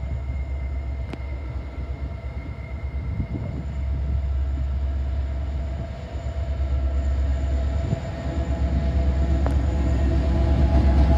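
G-class diesel-electric locomotive hauling a container freight train, its engine running with a low rumble that grows louder as it approaches and draws level.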